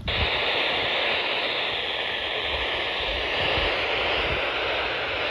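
Weather radio receiver putting out a steady FM static hiss that starts abruptly as the broadcast cuts out: the radio has a weak or lost signal.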